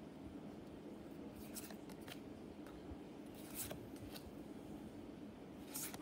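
Pokémon trading cards being flipped through by hand, each card sliding off the stack with a short papery swish, about six times, a second or so apart.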